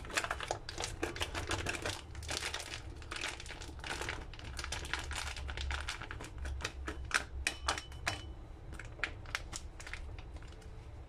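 Clear plastic packet of peeled ginkgo nuts crinkling as it is shaken over a ceramic bowl, with the nuts dropping in as a dense, irregular run of small clicks.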